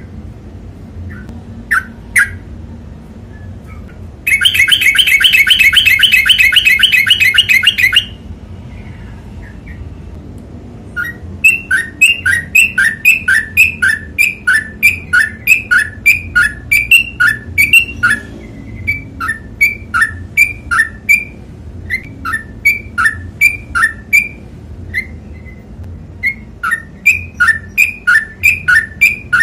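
Yellow-vented bulbul (trucukan) singing: a loud, very fast trill lasting about four seconds, then after a short pause a long run of short, repeated, two-part notes, about two to three a second, with brief breaks.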